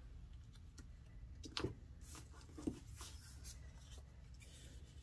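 Faint paper rustling with two soft taps, about one and a half and nearly three seconds in, as paper scraps are handled and laid on a scrapbook page.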